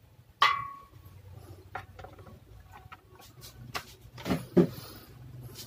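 Clicks and taps of hard plastic and metal parts being handled on a workbench, starting with a sharp click that rings briefly about half a second in and ending with two louder knocks near the end, over a low steady hum.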